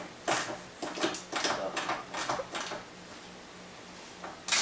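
Quarter-inch ratchets clicking in short, irregular strokes as they are worked back and forth, dying away about three seconds in. A louder metallic clatter starts right at the end.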